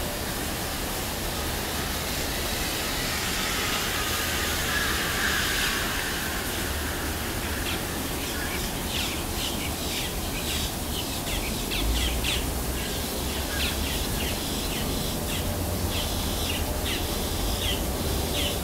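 Short, high-pitched animal chirps in quick irregular runs, starting about eight seconds in, over a steady hiss and low rumble.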